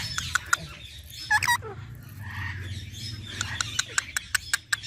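Green parrot chirping: scattered short, sharp chirps, two pitched calls a little over a second in, then a quick run of short chirps near the end, over a steady low hum.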